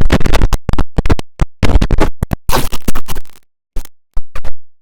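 IBM OS/2 Warp 3 shutdown sound, digitally chopped into rapid stuttering fragments that start and stop abruptly, like record scratching. It is loud, with a few brief silent gaps a little past the middle.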